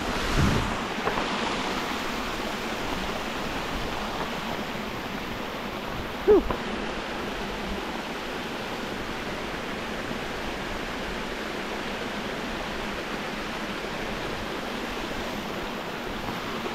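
Small mountain creek's water running steadily down a long, sloping rock slide, a continuous rushing hiss. A brief thump comes near the start, and a short sound falling in pitch about six seconds in.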